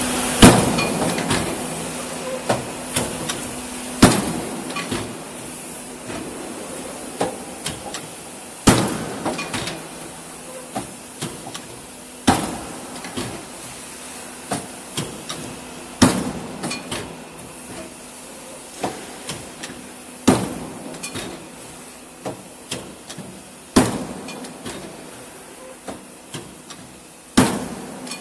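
CJ200Z CNC plate punching machine punching square holes through metal plate: a loud, sharp bang about every four seconds, eight strokes in all, with lighter clicks and knocks between them.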